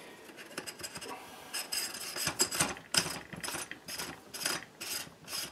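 Metal threads scraping as a buffer tube is screwed by hand into a Sig Sauer MPX: faint at first, then a run of short rasping strokes, about two to three a second, from about a second and a half in.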